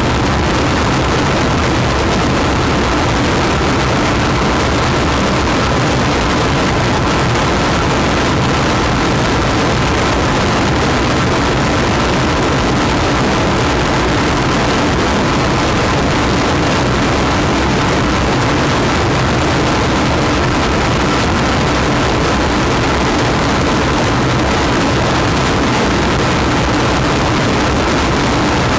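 A homemade noise instrument, a wooden box with motor-driven spinning discs and metal rods worked by hand, makes a loud, dense, unbroken noise drone. Two steady high tones run through a harsh, rumbling wash.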